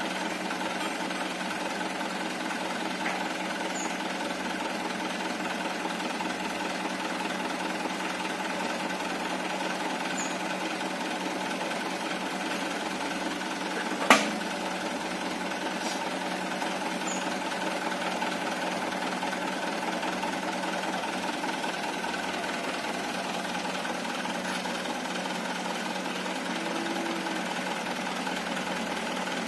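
Loaded dump truck's engine idling steadily. About halfway through, one sharp metallic clank from the rear tailgate as it is unlatched and opened for tipping the sand.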